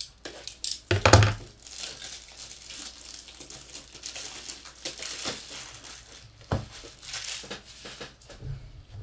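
A plastic wrapper crinkling and tearing as a pack is opened by hand, with scattered handling clicks and one louder knock about a second in.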